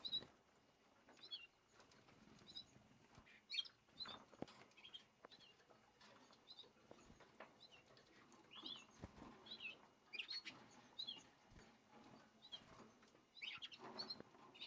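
Young canaries in a cage giving short, faint, high chirps scattered about once a second, with a brief wing flutter.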